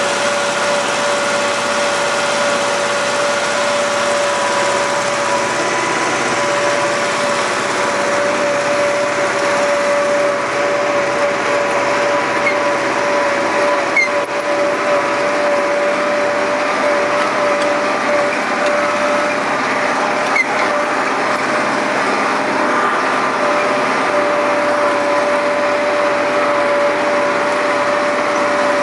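John Deere tractor engine running steadily under load while pulling a disc harrow through dry tilled soil, heard close up from the tractor, with a steady whining tone over the engine. Two brief clicks near the middle.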